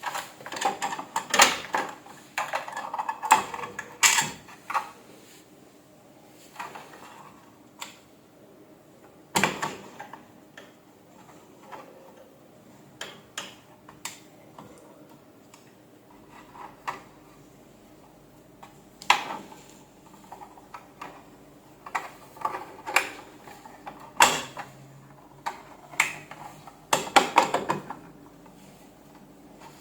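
Irregular clicks, taps and clatter of small hard objects being handled, in scattered clusters with quieter stretches between.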